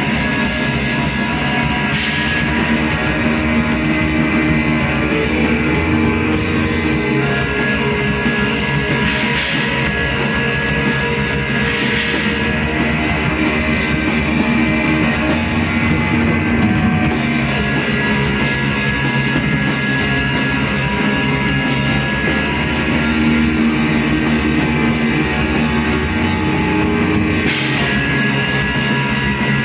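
Loud rock-style improvised jam, with guitar played over a sustained drone of steady held tones.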